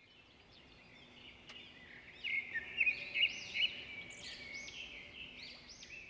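Several birds chirping, with many short high calls overlapping; they grow louder about two seconds in and are busiest through the middle.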